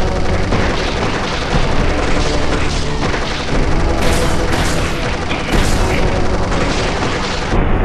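Boom and blast sound effects: a dense noise with louder bursts about four and five and a half seconds in, over music with steady low notes.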